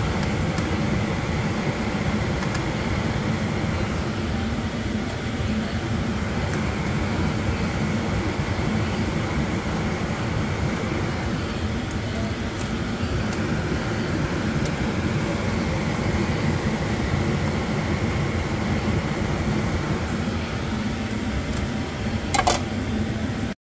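Steady low whirring noise of a kitchen exhaust fan running over the stove during deep-frying. A short clink, like the metal slotted spoon touching the bowl, comes near the end.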